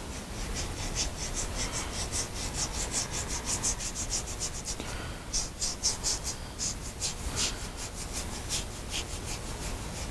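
A flat paintbrush loaded with black acrylic scrubbing back and forth across a canvas board in quick zigzag strokes: a scratchy rasp at about four strokes a second, with a short pause about halfway through.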